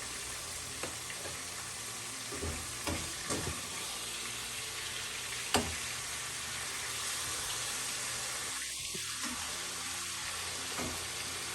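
Cut-up chicken thighs sizzling steadily in a frying pan, with a few light knocks about two and a half to three and a half seconds in and one sharper click near the middle.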